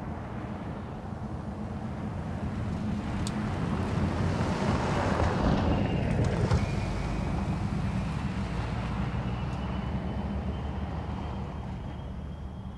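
2024 Toyota Tacoma i-FORCE MAX pickup driving fast on a dirt track, engine and tyres on loose dirt growing louder as it passes close about five to six seconds in, then fading as it moves away. A few sharp ticks, like flung gravel, are heard as it nears.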